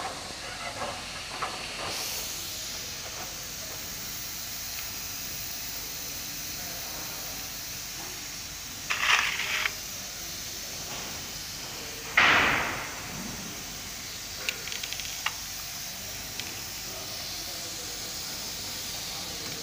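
Steady hiss of background noise, broken by a short rattle of knocks about nine seconds in and a louder knock that tails off over most of a second about twelve seconds in, with a few light clicks after. The knocks come from the front fork tube being handled and fitted into the triple clamp of an electric chopper scooter.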